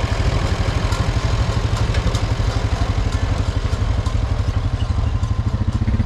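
Small vintage tractor's engine running steadily, with an even, rapid low exhaust beat.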